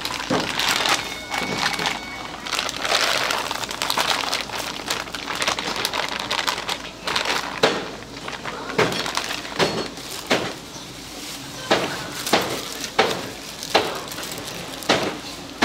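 Cooking utensils knocking and clattering: a dense, busy clatter in the first half, then sharp separate knocks, about one or two a second, through the second half.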